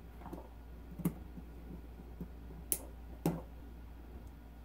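Small sharp clicks of metal parts and pliers being handled at a phonograph motor shaft while a thin washer is fitted onto it, three clicks louder than the rest.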